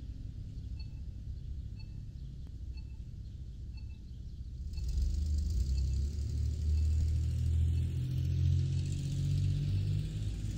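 Crosswalk pedestrian-signal beeps, faint and repeating about once a second over low traffic rumble. About halfway through the beeps stop and a louder vehicle rumble with tyre hiss takes over.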